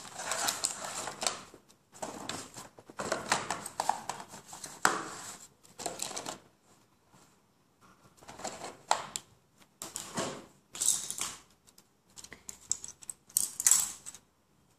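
Hands handling a cardboard box of Reeves watercolour paint tubes and paintbrushes on a hard stone surface: rustling, scraping and small clicks in several bursts with short pauses between them.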